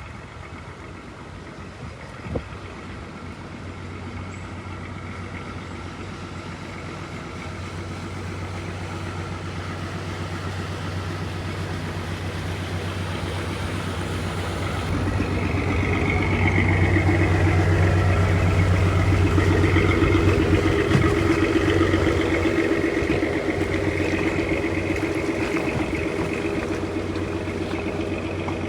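A boat's engine running steadily, growing louder as it comes closer, loudest about two-thirds of the way through, then easing off slightly.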